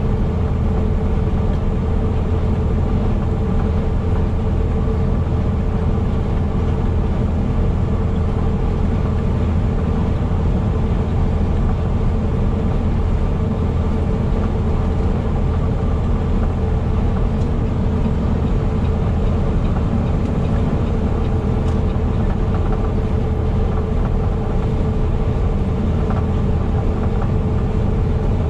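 Heavy truck driving at a steady speed: a constant low engine drone with steady tones that hold their pitch, over road noise.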